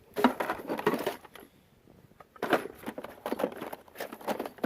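Small hand tools such as picks and punches clattering as a hand rummages through a tool drawer, in two spells of rattling with a short pause between.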